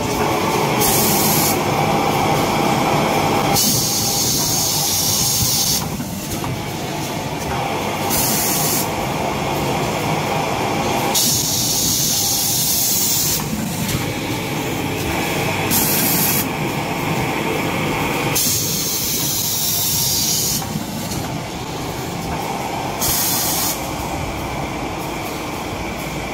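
Toilet paper and kitchen towel production line machinery running steadily and loudly, with spells of hissing every few seconds from the automatic roll packing machine's air-driven mechanisms.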